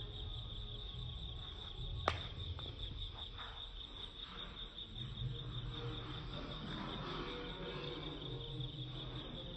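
Crickets chirping in a steady, rapidly pulsing high trill, with a single sharp click about two seconds in.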